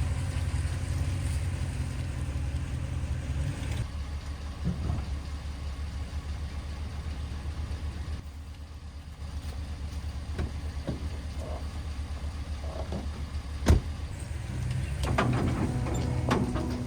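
Mini excavator engine running steadily, with a sharp knock about 14 seconds in and metallic clanking near the end.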